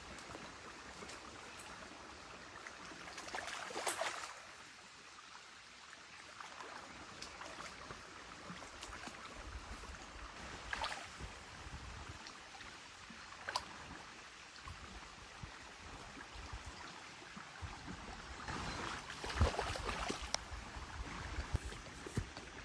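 Small woodland creek flowing steadily, a soft even hiss of running water. A few short, sharper noises cut in, and a longer, louder noisy stretch comes near the end.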